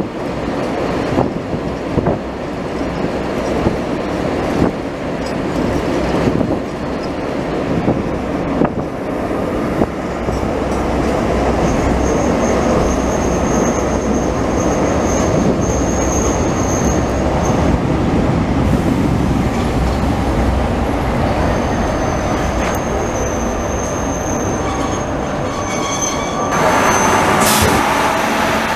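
Passenger train running over track. Rhythmic clacks of wheels over rail joints come first, then a steady rumble with a high wheel squeal from about twelve seconds in, and the noise grows louder near the end as an M47 diesel locomotive passes close by.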